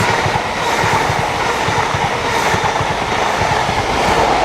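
An East Midlands High Speed Train (InterCity 125, Class 43 power cars) passing close by at speed, with a steady rush of train noise and the repeated clatter of its wheels over the rail joints.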